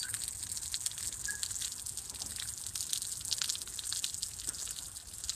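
Park drinking fountain running, its jet of water splashing and spattering into the metal basin in a continuous hiss.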